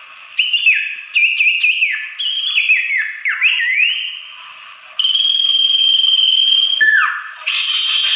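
Common iora (sirtu) calls played as a bird-lure recording. A series of short whistled notes slurs downward, then comes one long, steady, high whistle that drops in pitch about seven seconds in, followed by quick chattering notes near the end.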